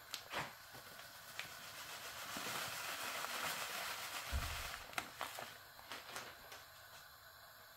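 Ground desiccated coconut poured into a frying pan of roasted dal mixture: a soft hiss of falling powder that swells over a few seconds, with a low thud about four seconds in and a few light clicks and taps.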